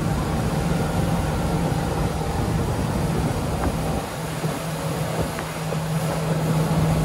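Mercury Pro XS 4.6-litre V8 outboard running hard with the boat up on the plane, a steady engine drone over the rush of water. The drone drops away briefly about four seconds in, then returns.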